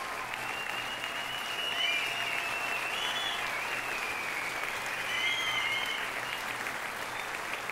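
Audience applauding steadily after the aerial act ends.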